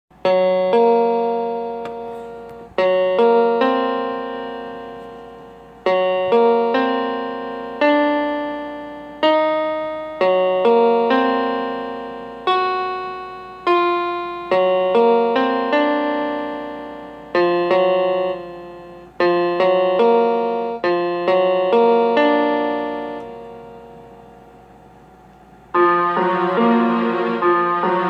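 Slow keyboard music of struck, piano-like chords, each left to ring and fade before the next. The sound dies away for a couple of seconds near the end, then a fuller, louder passage comes in.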